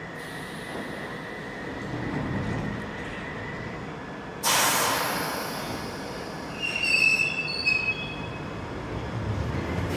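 London Underground 1973 Stock tube train standing at the platform: a sudden loud hiss of air about four and a half seconds in that fades over a second, then brief high-pitched squeals around seven seconds, and a low rumble building near the end as the train starts to move off.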